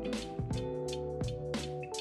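Instrumental background music with a steady drum beat over held tones.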